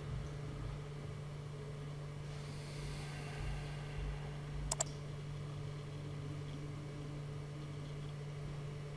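A steady low hum, with a quick double click of a computer mouse about five seconds in.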